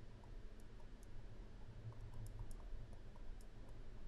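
Faint, scattered light clicks of a stylus tapping on a pen tablet while handwriting is written, over a low steady hum.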